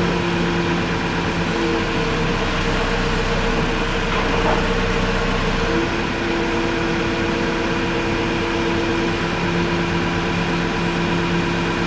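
Heavy engine running steadily, with a few steady whining tones over it that come and go.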